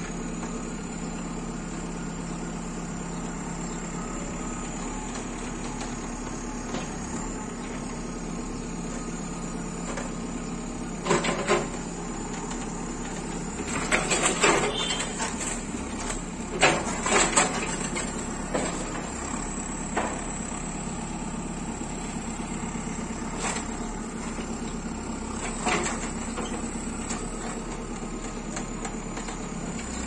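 JCB 3CX backhoe loader's diesel engine running steadily as its backhoe bucket knocks down an old mud-brick wall. Loud crashes of the wall and clods coming down about a third of the way in and again several times around the middle, with a few smaller thuds later.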